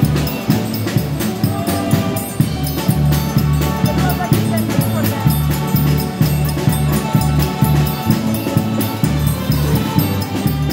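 Live band playing an upbeat tune: a drum kit keeps a steady beat under a strong bass line, with horns playing over it.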